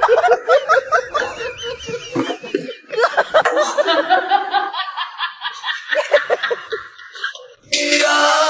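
A person laughing in quick repeated high-pitched bursts, fit after fit, breaking off abruptly near the end.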